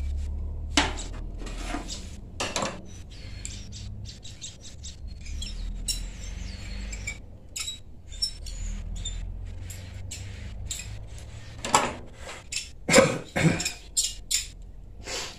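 Steel hand tools and small metal parts clinking and clattering as pliers are handled and clamped on a tie rod end, with a louder run of clanks near the end. A steady low hum runs underneath.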